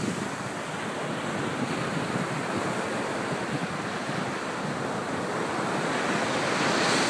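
Small ocean waves breaking and washing up a sand beach, a steady rush of surf that swells near the end as a wave breaks.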